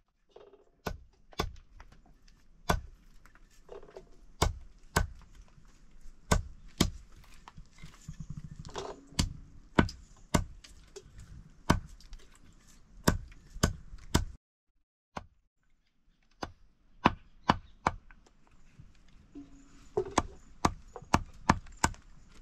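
A large knife chopping in steady, separate strokes, about one to two a second: first green vegetables cut in the hand, then, after a break of about two seconds, herb vine ropes chopped against a wooden block.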